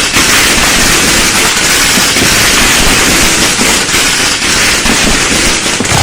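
A dense, unbroken barrage of firecrackers and fireworks going off, with many overlapping bangs and crackles and no pause between them.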